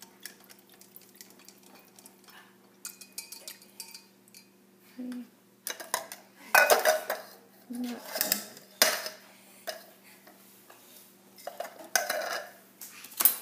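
A whisk stirring chicken broth in a glass measuring cup, giving many light quick clicks against the glass. After about five seconds come several louder clanks as the whisk is knocked against a metal can.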